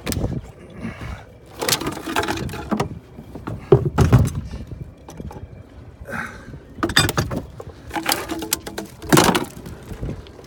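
Stainless-steel fittings and fibreglass locker lids being handled in a boat's cockpit lockers: a string of separate knocks and clatters a second or two apart, with rustling and scraping between them.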